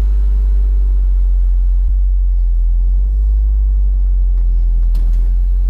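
Toyota MR2's engine running with a loud exhaust, a steady low rumble and drone.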